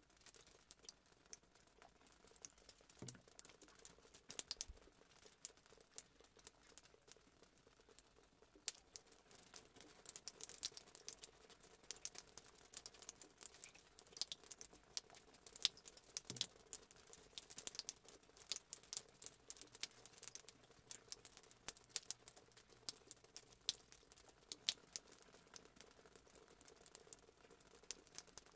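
Faint, irregular light clicks and ticks, many close together, over a faint steady hum.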